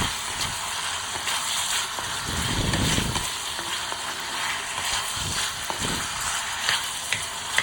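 Potato pieces frying in rice bran oil in an iron kadhai: a steady sizzle, with a few soft low bumps.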